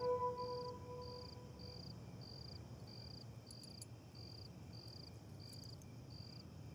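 Faint cricket chirping: an even, high-pitched pulse repeating a little under twice a second. The last notes of soft music die away in the first second or two.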